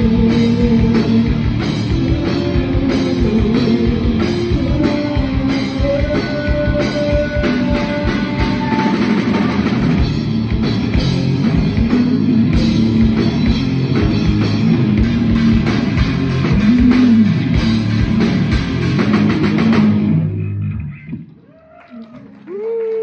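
Rock band playing live: drum kit, distorted electric guitars, bass guitar and a female singer, with the song ending abruptly about 20 seconds in. A short pitched sound follows near the end.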